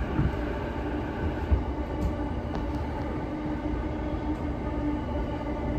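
Cabin running noise of a JR E233-series electric commuter train: a steady rumble of wheels on the rails with a faint steady hum.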